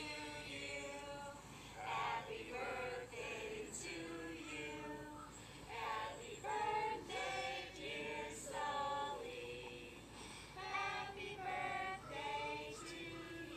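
Singing voices played back through an iPhone's small speaker, phrase after phrase without a break.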